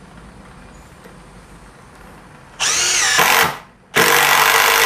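Ryobi Kyocera BID10XR brushless cordless impact driver driving a screw into hard wood, in two loud bursts starting about two and a half seconds in. In the first burst the motor pitch wavers up and down; the second, longer burst starts about four seconds in.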